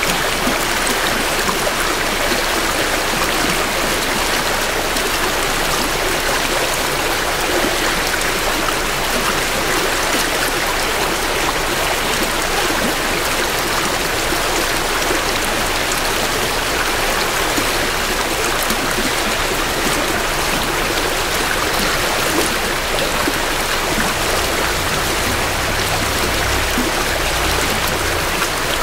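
Mountain creek flowing steadily over rocks, a continuous even rush of water heard close to the bank. A low rumble joins briefly near the end.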